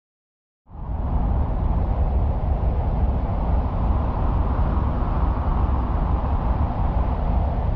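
Sonified space recording of the kind sold as the 'sound' of a planet in the solar system: a steady, dense rush of deep noise that starts abruptly less than a second in, after silence.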